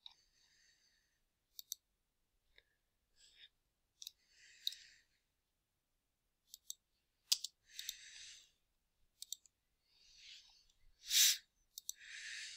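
Computer mouse clicking several times, some clicks in quick pairs, as points of a line are placed. Short soft hissy noises come between the clicks, the loudest about eleven seconds in.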